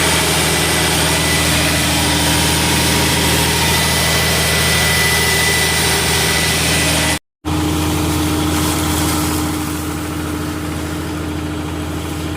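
Sullair 375 cfm portable air compressor's diesel engine running steadily, under a loud rushing hiss. A brief dropout comes about seven seconds in; after it the hiss fades and the overall sound is somewhat quieter.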